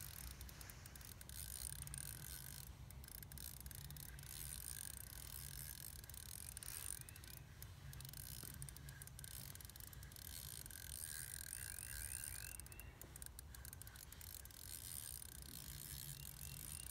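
Fishing reel ticking in short runs of rapid clicks as a hooked lake trout is played through the ice hole, with a faint steady low hum underneath.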